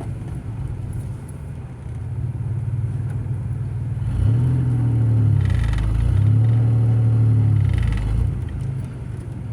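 Car engine running under way, speeding up about four seconds in, with a short dip and a second pull around five and a half seconds, then settling back down near the end.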